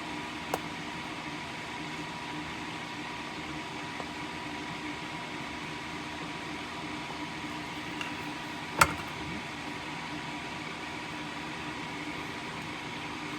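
Steady fan-like hum with a faint steady tone, broken by a few light clicks and one sharp click about nine seconds in.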